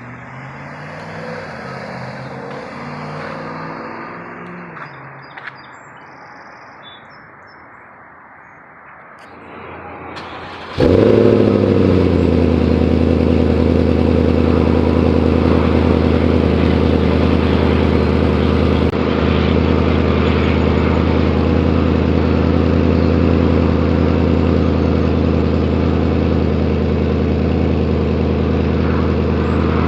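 Volvo S80's 4.4-litre V8 running through a Becker aftermarket exhaust: at first quieter, its pitch rising and falling, then about eleven seconds in it cuts abruptly to a much louder, steady deep idle drone.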